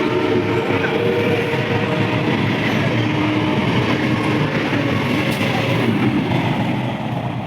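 A train running close by, a loud, steady noise of wheels on rails that begins to fade near the end.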